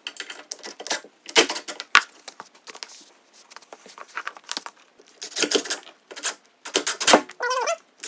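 Irregular clicks, taps and knocks from a cordless drill driver and screws being worked at a chrome steel butt hinge while it is screwed to a wooden door lining.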